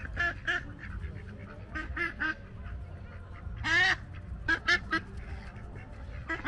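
Domestic ducks quacking: short quacks in quick runs of two or three, with one longer, louder quack a little past the middle.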